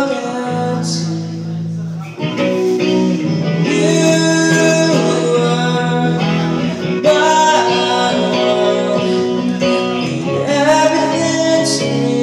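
Live rock song played on an electric guitar through an amplifier, with a man singing at times.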